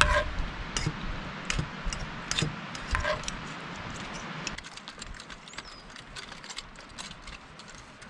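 Steel forks and a stainless ladle clinking and scraping on metal camp plates and a cast iron skillet during a meal. Two of the clinks ring briefly, one at the start and one about three seconds in. After about four and a half seconds the sound falls quieter with only faint clicks.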